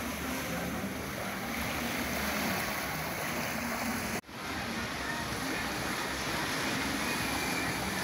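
Small sea waves washing steadily onto a pebble beach. The sound drops out abruptly for a moment about four seconds in and then resumes.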